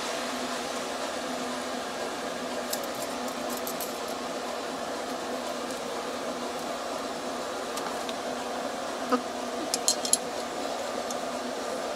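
Small metallic clicks and clinks of a flaring tool's clamp bar and yoke being handled and fitted onto 1/4 inch copper tubing, a few about three seconds in and a louder cluster about nine to ten seconds in, over a steady background hum.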